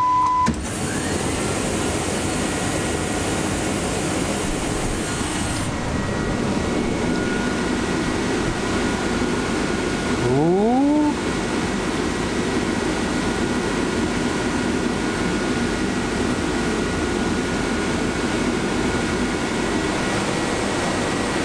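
Steady even air noise from a fan or air conditioner. A short beep sounds right at the start, and a brief rising whine follows about ten seconds in.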